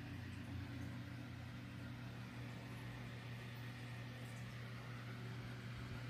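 Steady low hum with a faint hiss: quiet background room noise, with none of the fire alarm horns sounding.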